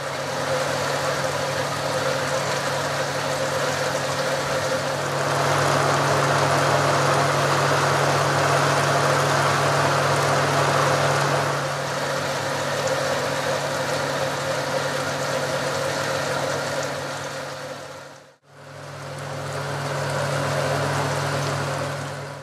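A mixing tank filling with liquid: steady rushing water over a constant machine hum. It gets louder for a stretch and cuts out for an instant near the end.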